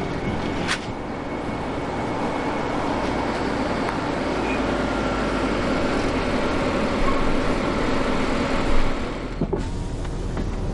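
Audi saloon car driving up, a steady engine and tyre noise that grows slowly louder over the first eight seconds or so.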